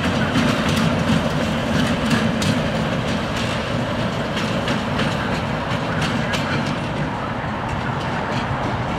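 ChME3 diesel shunting locomotive running light, its six-cylinder diesel engine running steadily while the wheels click over rail joints. It grows slightly quieter as it moves away.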